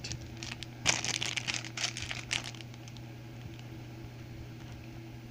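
Clear plastic packaging bag crinkling as it is handled, with a cluster of crackles in the first half, then only a steady low hum.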